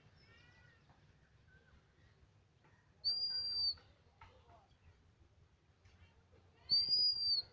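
Bird calls: two loud, high whistled notes about three and a half seconds apart, each lasting under a second, with fainter chirps between them over a low background hum.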